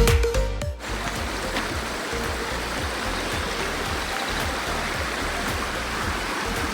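Background music with a heavy beat cuts off about a second in. It gives way to the steady rush of a flowing stream.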